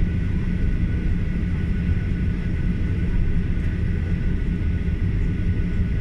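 Boeing 737-800 cabin sound while taxiing: its CFM56-7B engines run at low taxi power, giving a steady low rumble with a thin high whine held on two steady pitches.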